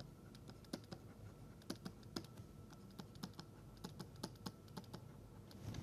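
Faint, irregular small clicks and taps of a pen writing, several to the second, with no steady rhythm.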